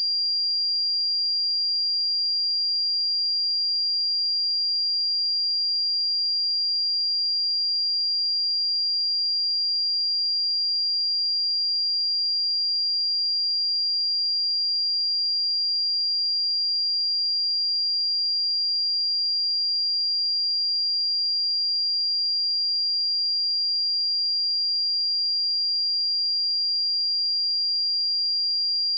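A steady, pure 4772 Hz sine-wave test tone, one high-pitched note held at an unchanging level.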